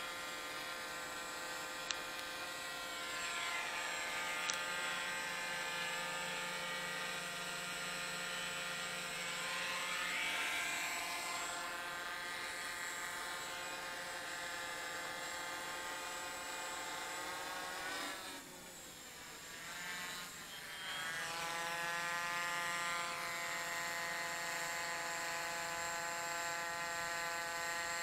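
Multirotor drone's electric motors and propellers buzzing in flight, a steady high whine. About two-thirds of the way through it briefly drops quieter and lower in pitch, then climbs back up.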